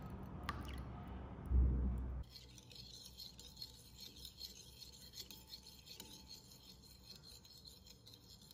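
A low thump, then from about two seconds in a metal fork beating eggs in a ceramic bowl: fast, steady scraping with small clinks of the fork against the bowl.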